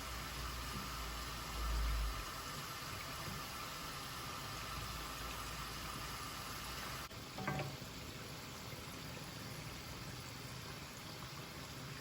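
Urad dal vadai deep-frying in hot oil, a steady sizzle. A brief low thump about two seconds in, and a short knock about seven and a half seconds in.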